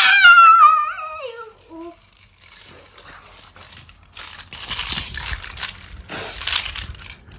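A child's high voice sliding down in pitch for about the first two seconds, then small die-cast Hot Wheels toy cars clattering and scraping against each other in bursts as they are pushed together and piled up.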